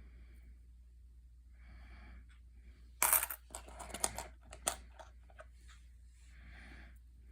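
A handful of pennies clattering onto a surface about three seconds in, followed by a run of single coin clinks as they are shifted and sorted. Soft, heavy breathing can be heard before and after.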